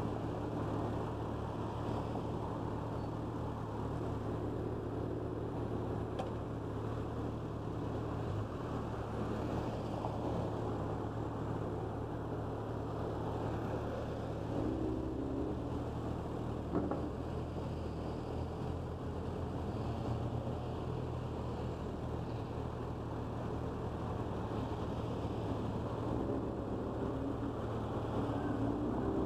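Motorcycle engine idling steadily while stopped, with the sound of cars passing through the intersection ahead rising and fading.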